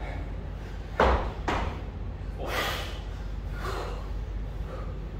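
Short, forceful breaths of a kettlebell lifter holding the bell in the rack position: four sharp puffs, the first and loudest about a second in, over a low steady hum of the hall.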